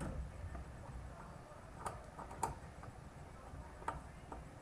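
Small Phillips screwdriver working the screws on an Xbox 360 Slim's fan housing: a few sharp, scattered clicks and taps of metal on screws and plastic.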